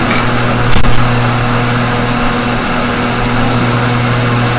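Steady electrical hum of a running fan motor, a low drone with evenly spaced overtones over a noisy hiss, with one brief knock about a second in.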